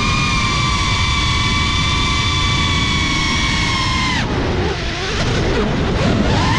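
Drone's electric motors and propellers giving a steady high whine with several pitches. About four seconds in the whine falls away into lower, wavering pitches, then climbs sharply again near the end.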